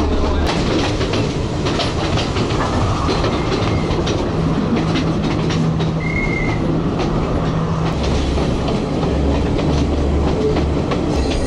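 Passenger train running along the track, heard from an open carriage window: a steady rumble with wheels clacking over the rail joints, and a brief high squeal about halfway through.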